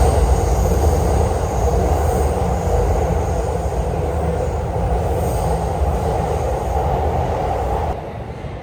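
A train running, a loud steady rumble with a rushing hiss over it; the sound drops away suddenly about eight seconds in.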